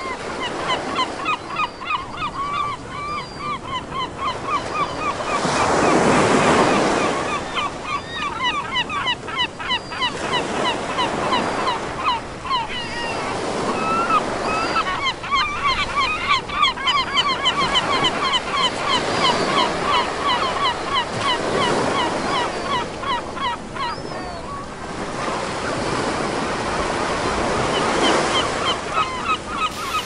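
Baltic Sea surf breaking, its wash rising and falling every few seconds, loudest about six seconds in, under a dense, continuous stream of short calls from a flock of gulls.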